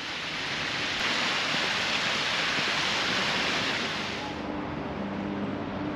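A steady rushing hiss, like wind or surf, that eases off about four seconds in and leaves a quieter background with a faint steady hum.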